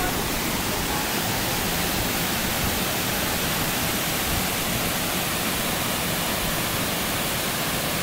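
Small waterfall cascading over rock into a pool, the falling water rushing steadily.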